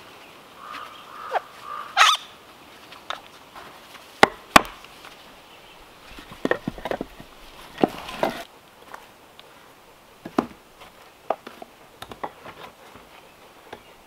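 Irregular wooden knocks and clicks as the carved pieces of a wooden door handle are handled and fitted together, round pegs going into square blocks. The sharpest knocks come about two seconds in and again just past four seconds.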